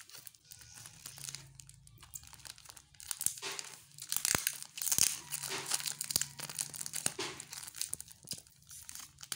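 Clear plastic film wrapped around a bundle of underwear crinkling as hands pull it open from a hole in it, in irregular crackly bursts with a few sharp clicks, busiest in the middle.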